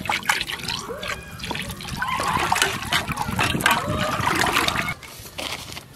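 Water in a large aluminium cooking pot being stirred with a ladle, splashing and sloshing, with a thin stream of cooking oil trickling in at the start; the splashing stops about five seconds in.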